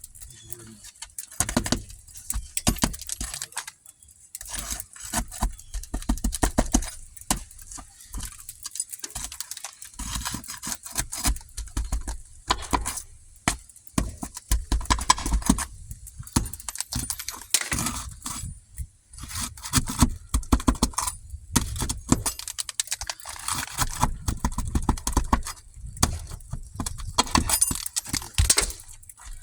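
Asphalt roof shingles being worked loose and pulled off their tack strip: a long run of irregular clicks, cracks and scrapes, with a low rumble that comes and goes.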